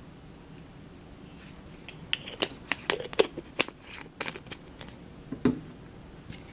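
Plastic spice containers being handled and shaken while seasoning: an irregular run of sharp clicks and taps, starting about a second and a half in and stopping shortly before the end.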